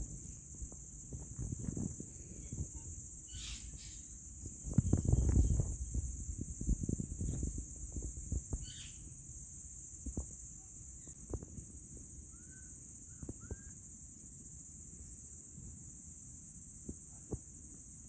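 Steady high-pitched chirring of crickets, with low rumbling noise that is loudest about five seconds in, and a few faint short chirps near the middle.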